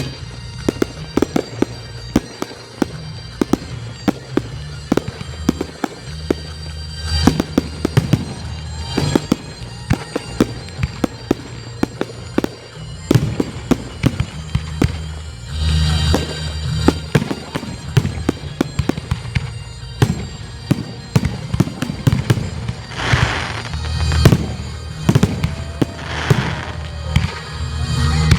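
A fireworks display: rapid bangs and crackles of shells going off in quick succession, with several longer hissing bursts near the end. Music plays underneath.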